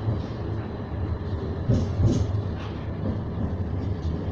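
An Edinburgh tram, a CAF Urbos 3, running along the street as heard from inside the passenger cabin: a steady low rumble, with a few short louder rattles, the strongest about two seconds in.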